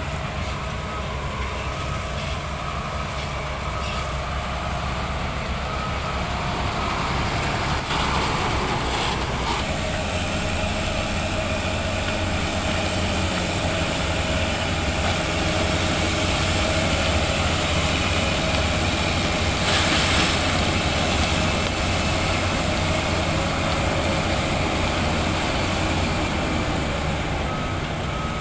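Heavy diesel engine of a sugarcane harvester running steadily under load while climbing a rise, its low rumble growing heavier about ten seconds in. A faint intermittent beep sounds near the end.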